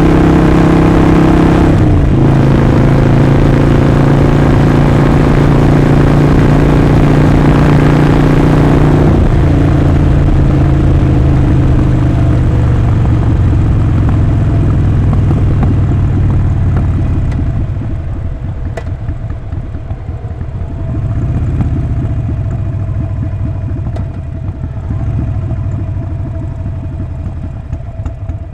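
Harley-Davidson Sportster Forty-Eight's air-cooled 1200 cc V-twin running under way, a loud steady exhaust note with brief breaks in the note about two and nine seconds in. From about seventeen seconds it drops to a quieter, lumpier running, as when rolling off the throttle and slowing, with a short rise in revs a few seconds later.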